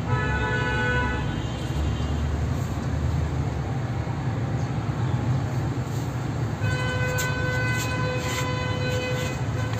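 A homemade gas torch burning against a padlock, giving a steady low roar. A held whistling tone comes in briefly at the start and again over the last three seconds, with some crackling near the end.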